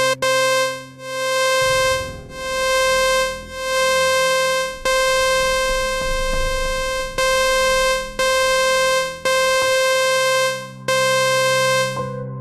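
Software synthesizer sounding one buzzy electronic note at a fixed pitch, over and over in notes about a second long; the first few swell in and fade out, the later ones start and stop sharply. This is the raw synth tone that is later shaped into a woman's scream.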